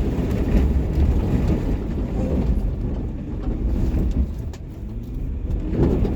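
Land Rover Discovery 3 engine running under heavy throttle as the vehicle is driven hard over rough off-road ground, with a few knocks and bumps from the body.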